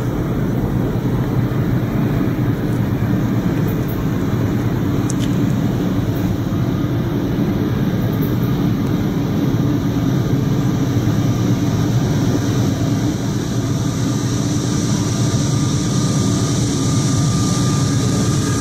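Norfolk Southern diesel locomotives leading an approaching intermodal freight train: a steady low engine rumble, with the hiss of wheels on rail growing over the last few seconds as the train comes close.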